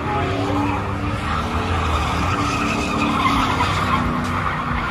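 Pickup truck doing a burnout: the engine runs hard at high revs while the rear tyres squeal and screech continuously against the pavement.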